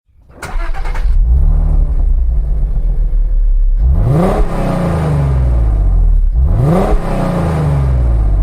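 Car engine running, revved up twice in quick blips, each rise in pitch falling back slowly toward idle.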